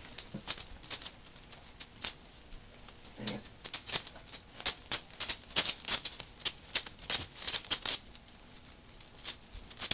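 Puppies at play, making a run of quick, irregular light clicks and rattles that come thickest in the middle and thin out near the end.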